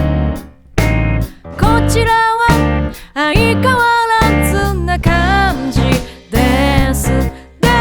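A pop song recording: a full band with bass, drums and guitar under a wavering melody line, stopping briefly for short breaks a few times.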